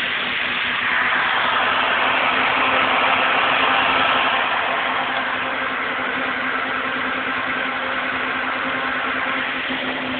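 14-inch electric radiator fan running steadily on solar panel power at just under 8 volts, well below its rated 12.5 volts: a whoosh of moving air with a steady low hum. It gets a little louder about a second in.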